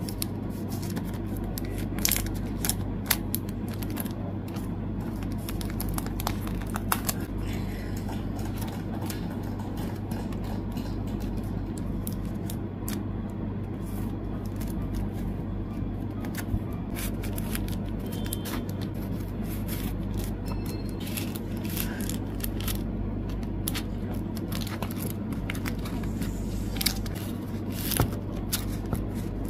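Clear plastic photocard sleeves crinkling and crackling as cards are slid in and out of them and into binder pockets, with scattered sharp clicks, over a steady low hum.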